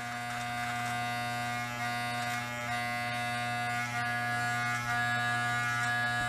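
Corded electric hair clippers running with a steady buzz while trimming along a drawn-on hairline.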